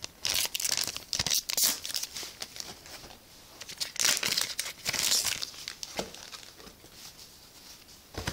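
Foil trading-card booster pack crinkling and tearing as it is opened by hand, in two spells of rustling: one just after the start, lasting about two seconds, and another about four seconds in.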